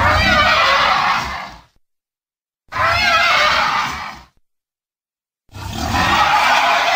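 Three creature roar sound effects from the 1998 TriStar Godzilla, each about a second and a half long with a wavering, screeching pitch, separated by short gaps of silence.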